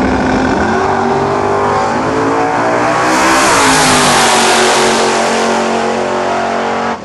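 Top Sportsman drag car launching and accelerating hard down the strip, its engine note climbing steadily in pitch. It passes close by about three and a half seconds in, at its loudest, then drops in pitch as it pulls away, and the sound cuts off abruptly at the end.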